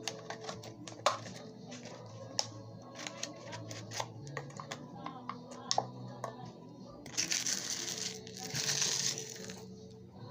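Plastic bottle crinkling and clicking under handling, then, about seven seconds in, a hissing rush as sea sand is poured into the cut-open bottle. Steady background music runs underneath.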